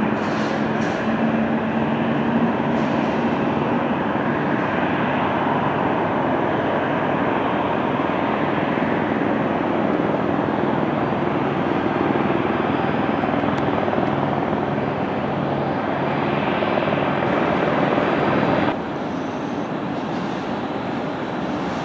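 Jet engines of a Boeing 737 airliner taxiing: a steady engine noise with a faint low hum, which drops abruptly in level near the end.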